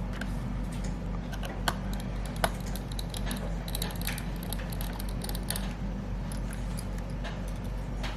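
Small clicks and taps of laptop parts being handled and fitted, with two sharper clicks about two seconds in, over a steady low hum.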